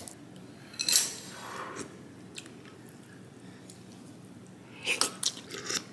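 Cold noodles being lifted and mixed with chopsticks and a metal spoon in a ceramic bowl: soft wet squishing and light clicks, mostly in a cluster near the end, with a brief rustle about a second in.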